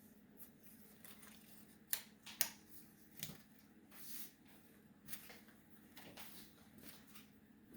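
Map puzzle pieces being handled and fitted into place: faint rustling and scattered soft clicks, with a couple of sharper taps about two seconds in.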